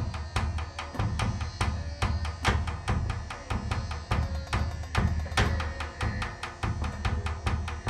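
Percussion playing a fast, dense rhythm: many quick, sharp strikes over a recurring deep bass thump.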